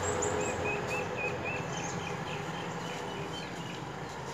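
A bird calling a run of short, evenly spaced chirps, about four a second, that trail off after a couple of seconds. Under it, the hum of a scooter engine fades as the scooter rides away.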